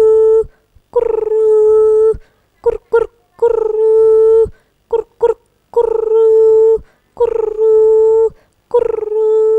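A woman imitating a dove's cooing with her voice. About six long, steady hooting notes of roughly a second each, broken twice by a pair of short notes.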